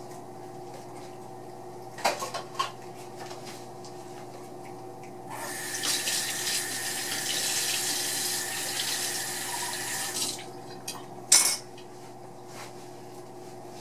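Kitchen faucet running into a steel sink for about five seconds, starting a little past five seconds in, with a few sharp clinks before it and one after. A steady low hum sits under it all.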